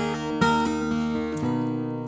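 Background music led by a strummed acoustic guitar, with chords changing every few tenths of a second.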